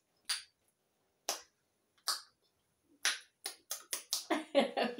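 A string of short, sharp clicks. A few are spaced out over the first three seconds, then they come quicker, about four a second, with a brief bit of voice near the end.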